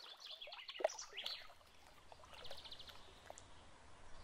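Faint garden birdsong: a few short chirps about a second in, then a quick high trill a little past two seconds.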